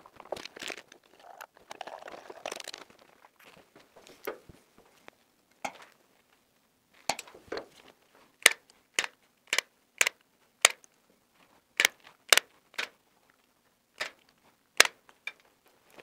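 Pliers snipping and stripping the cores of electrical installation cable at a flush wall box: a run of about a dozen sharp clicks roughly half a second apart in the second half. Before them comes rustling and scraping as the socket and wires are handled.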